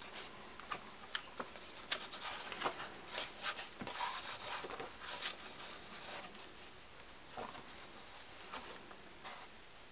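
Pages of a large-format comic album on natural matte art paper being turned by hand: crisp paper flicks and rustling, busiest in the first half, then lighter rustling.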